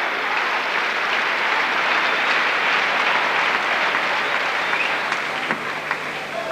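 Arena crowd applauding after a point in a table tennis match, the clapping thinning out over the last second or two.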